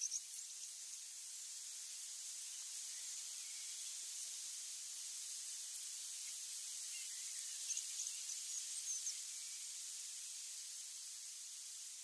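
Canada geese and goslings grazing: soft crisp ticks of bills plucking and tearing short grass, a small cluster of them about eight to nine seconds in, over a steady high outdoor hiss.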